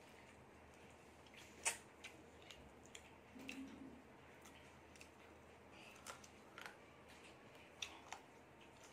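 Quiet eating by hand: scattered sharp clicks and smacks from chewing and from fingers mixing rice on a plate, the loudest click nearly two seconds in.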